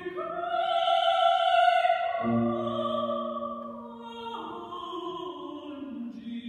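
Operatic soprano singing with grand piano accompaniment. She holds a long high note for about two seconds, then moves to lower phrases, and the music grows softer toward the end.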